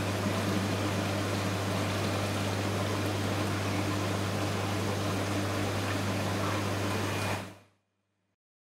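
Steady hiss with a low electrical hum, like a fan or air conditioner running. It fades out about seven and a half seconds in.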